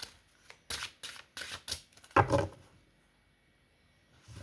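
Tarot cards being handled: a run of quick flicks and snaps, then a card set down on the table with a soft thud about two seconds in.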